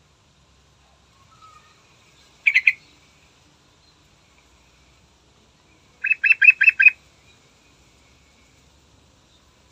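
Yellow-vented bulbul (trucukan) singing: a short bubbly phrase of about three quick notes about two and a half seconds in, then a faster run of about six clear notes about six seconds in.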